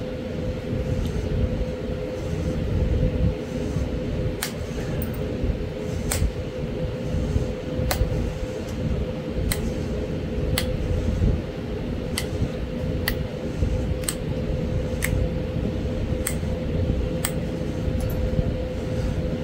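Pressure flaking Florida coral with a copper flaker: sharp clicks as small flakes snap off the edge, about one a second from about four seconds in. A steady low machine hum with a constant tone runs underneath.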